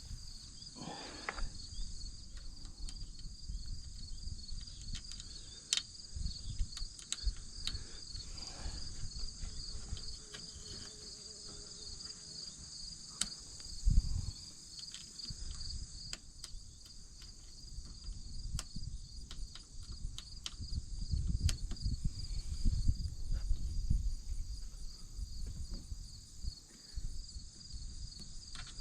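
A steady, finely pulsing high chorus of insects chirping, with scattered small metallic clicks and low handling rumbles as an Allen wrench tightens the bolt of an aluminium roll-bar clamp; one heavier thump about halfway through.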